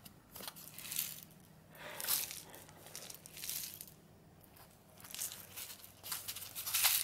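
Small cardboard box handled and turned in the hand: fingers rubbing and scraping on the cardboard in about five short rustling bursts, the loudest near the end.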